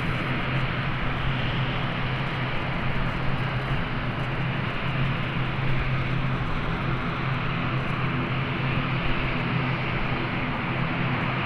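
ATR 42-500 turboprop airliner's engines and propellers running steadily: a constant drone with a low hum underneath.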